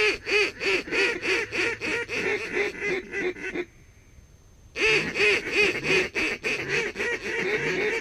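Rapid, regular run of duck quacks at about four a second. It breaks off for about a second near the middle, then resumes at the same pace.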